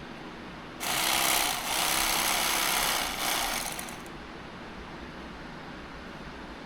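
A small power tool runs for about three seconds with a brief dip, cutting or grinding with a steady hiss, then stops.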